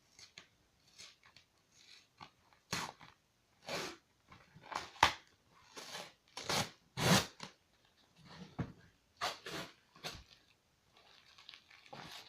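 Packaging being ripped open by hand: a series of short, irregular tearing and crinkling rips, several of them loud.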